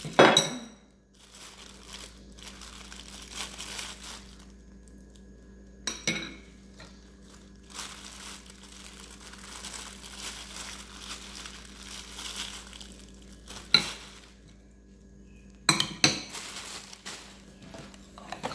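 Metal spoons clinking and scraping against bowls on a table: a loud clatter at the start, single sharp clinks about six and fourteen seconds in, and a short run of knocks near the end, with faint crinkling in between.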